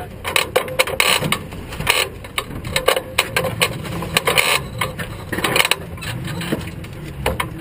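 Irregular clicks, knocks and rustling as a person climbs through a race car's cockpit, bumping the car's frame and interior close to the microphone.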